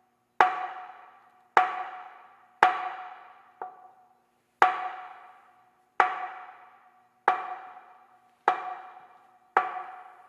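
Temple wooden signal board (ban) struck with a striker in the ending-board rhythm that closes the morning wake-up board signal: nine resonant knocks roughly a second apart, each ringing out briefly with a clear tone, the fourth one lighter.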